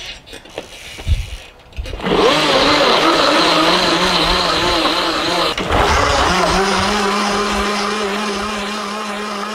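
Pedal-powered bike blender running: the blade, driven from the bike's rear wheel, whirs through a smoothie. It starts about two seconds in, after a few knocks, and its pitch wavers with the pedalling. It breaks off briefly midway, then carries on steadier and fades slightly near the end.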